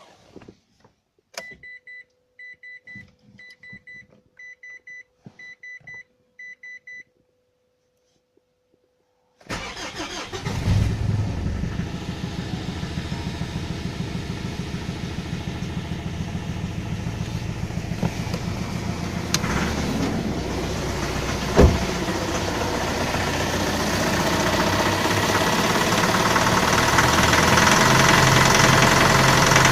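Mitsubishi L200 pickup: a click and six short electronic beeps from the car, then the engine cranks and starts from cold in sub-zero temperatures at about nine and a half seconds. It idles with a rapid, regular knock, the morning cold-start knock that the owner says fades once the engine warms up. There is a single sharp knock about two-thirds of the way through.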